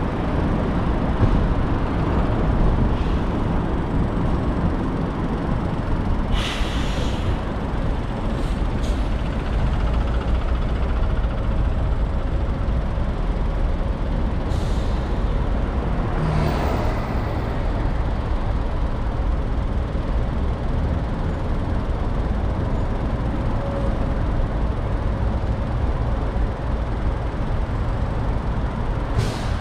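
Steady low rumble of a car driving through city traffic, with four brief hisses from nearby traffic over about half a minute.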